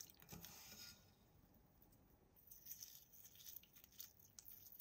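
Faint patter of wet bath salt crystals and water dripping from fingers into a glass bowl of water. There is a burst in the first second, then a longer run of small crackles in the second half.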